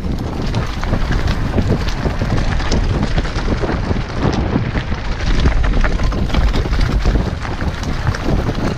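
Wind buffeting a GoPro Hero 5's microphone on a fast mountain-bike descent, over the crunch of tyres on loose rocky trail and the steady clatter and rattle of the bike over the stones.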